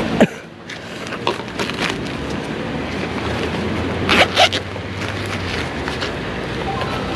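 Zipper of a tackle bag pulled in two quick strokes about four seconds in, with a few clicks of things handled in the bag, over a steady low hum.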